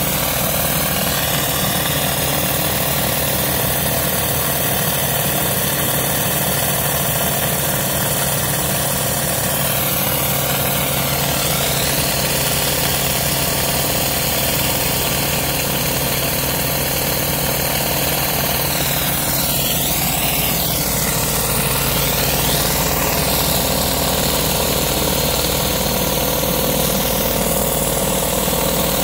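Pressure-washer rotary surface cleaner spinning over concrete, high-pressure water hissing under its hood as it strips dirt and mould, over the steady running of the pressure washer's engine. The hiss shifts in tone now and then as the cleaner is moved.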